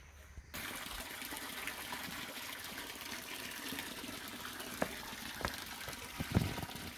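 Steady rush of running water that starts abruptly about half a second in, with a few short knocks near the end.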